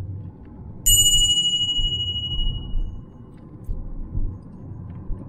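A bright bell-like chime sound effect strikes about a second in and rings out over a couple of seconds. Under it runs the low rumble of the car driving, heard from inside the cabin.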